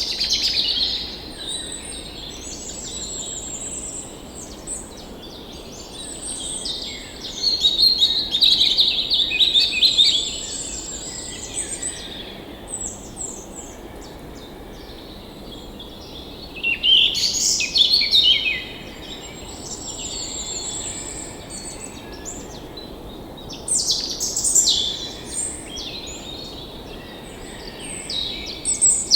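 Several songbirds singing and chirping at once, in overlapping high trills and whistles, swelling louder in bursts several times, over a steady low rush of flowing water.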